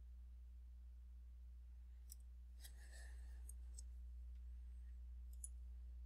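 Near silence over a low steady hum, with a few faint computer clicks: a short cluster about three seconds in and a single click near the end.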